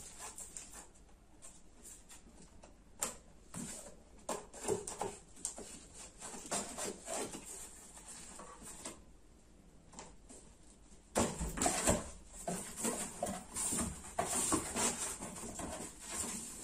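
Knife scraping and cutting the packing tape on a cardboard box, with scattered clicks and scrapes. From about eleven seconds in come louder rustling and knocking as the cardboard flaps are pulled open.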